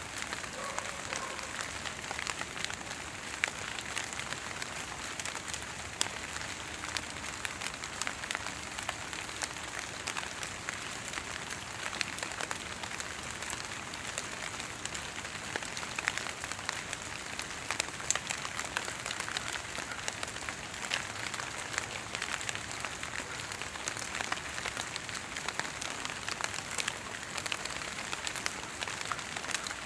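Fog drip: water drops falling from fog-soaked tree leaves and needles onto the foliage below, many separate drops pattering steadily like light rain.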